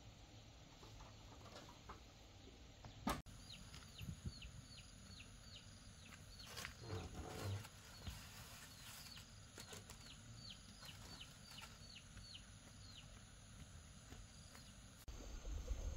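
A sharp click, then a bird giving a run of short chirps that each fall in pitch, about two a second, for some ten seconds, with a brief rustle partway through.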